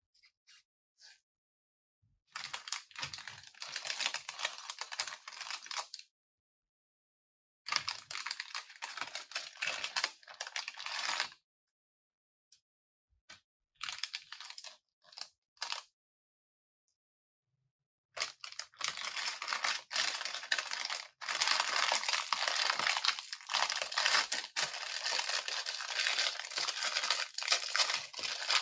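Clear plastic bags of small plastic building pieces being crinkled and handled, with many small clicks as the loose pieces shift inside. The crinkling comes in two spells of a few seconds, then a few scattered ticks, then runs on unbroken from about two-thirds of the way in.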